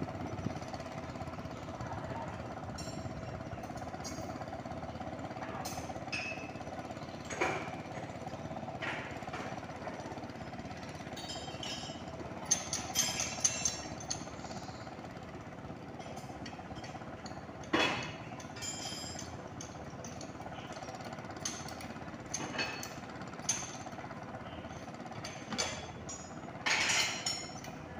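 Tractor engine running steadily while plowing a flooded rice paddy, with occasional sharp knocks and clinks, a cluster of them about halfway through and again near the end.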